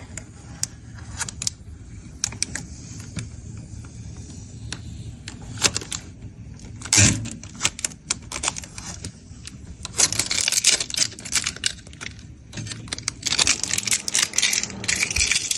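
Irregular clicking and clattering of small hard objects, with one louder knock about seven seconds in, growing denser and louder from about ten seconds in.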